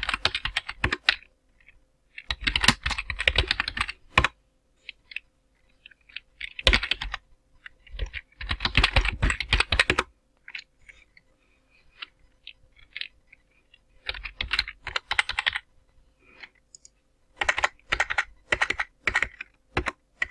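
Typing on a computer keyboard: quick bursts of keystrokes, each one to two seconds long, separated by short pauses and a few single key taps.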